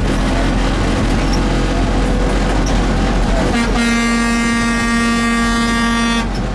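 Bus engine and road noise inside a moving bus, with a long, steady blast of a vehicle horn starting about three and a half seconds in and lasting about two and a half seconds.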